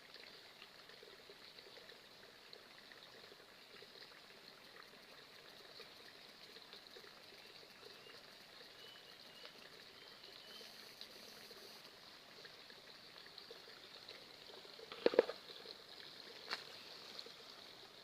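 Faint, steady trickle of water flowing in a rice-paddy channel. A couple of sharp knocks stand out about fifteen seconds in.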